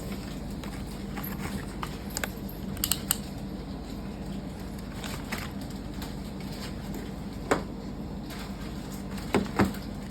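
A few sharp clicks and knocks of hard plastic parts of a lint remover being handled and taken apart, over a steady low hum; the loudest are two clicks close together near the end.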